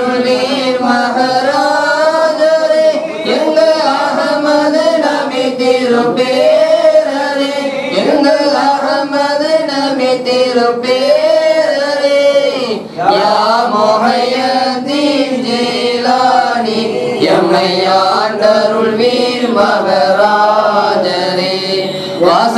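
Men's voices chanting a slow, melodic devotional recitation together, with a brief break for breath a little past halfway.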